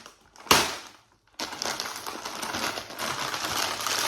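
Plastic crisp packet handled: a sharp rustle about half a second in, then steady crinkling and crackling from about a second and a half in.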